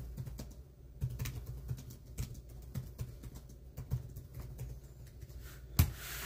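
Irregular light clicks of typing on a computer keyboard, with one sharper, louder click near the end, over a low steady hum.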